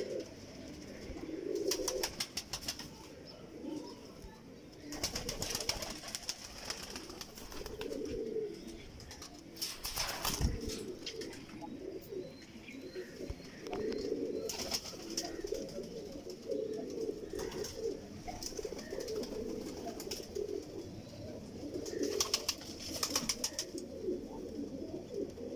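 Sialkoti pigeons cooing again and again in low, throaty phrases, with a few short bursts of rapid clicking or rustling in between.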